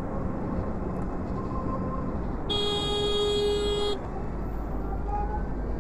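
Horn of a Zero SR electric motorcycle: a single steady blast of about a second and a half, beginning about two and a half seconds in, sounded as a warning to a driver. Wind and road noise from riding runs underneath.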